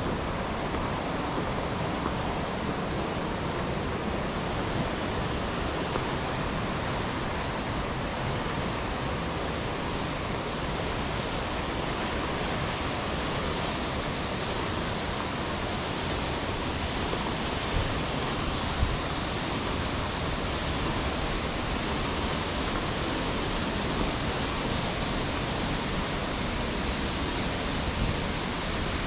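Steady rush of a mountain stream's flowing water, with two small knocks a little past halfway.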